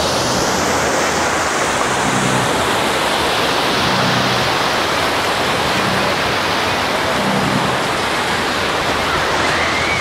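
Small Black Sea waves breaking and washing around the shallows at the water's edge: a steady, even rushing of surf.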